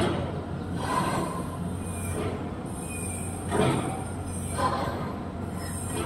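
Parrots giving harsh screeching calls: four short bursts, in two pairs about a second apart, over a steady low hum.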